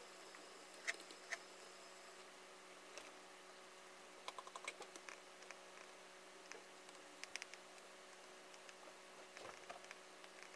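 Faint, scattered light clicks and taps: a laptop keyboard and trackpad, then a stylus tapping on a tablet screen, with a quick run of clicks about four seconds in. A faint steady hum lies underneath.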